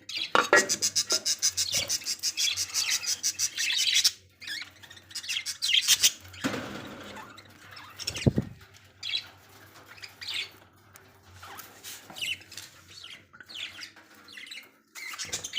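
Budgerigars chirping and squawking: a fast run of repeated high chirps for the first four seconds, then scattered short chirps, with a couple of brief rustling bursts around the middle.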